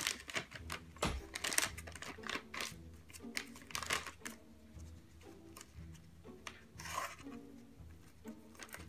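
Plastic treat pouch crinkling and rustling in irregular bursts as a small dog paws and bites at it, trying to get it open.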